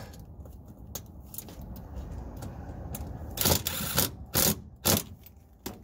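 A power drill driving a self-tapping screw into the chassis frame to fasten a ground wire, in three short bursts of spinning with a brief last one, after some quieter handling clicks.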